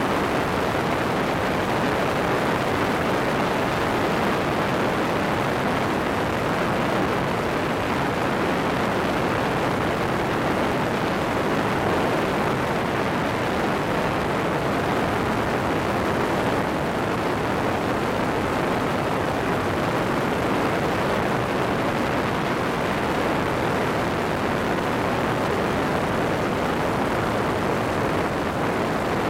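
Steady rush of wind and engine noise from a two-seat Airborne weight-shift microlight trike in cruising flight, its pusher propeller running.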